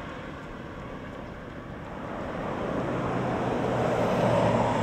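A pickup truck driving past, its engine hum and tyre noise growing louder through the second half and loudest near the end.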